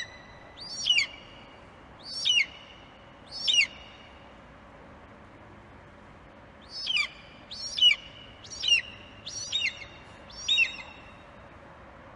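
Bird of prey calling: short, high screeches, each falling in pitch, about one a second. There are four, then after a pause of about three seconds, five or six more.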